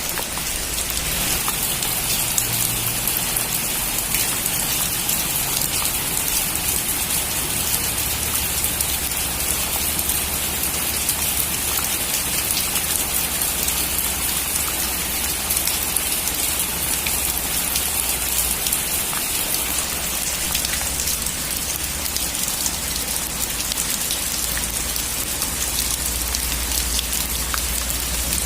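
Heavy rain falling steadily on a metal roof: a dense, even hiss with scattered sharper drop hits and a low steady rumble beneath.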